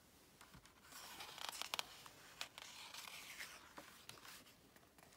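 A page of a large hardcover picture book being turned by hand: faint paper rustling and crinkling with a few light clicks, lasting about four seconds.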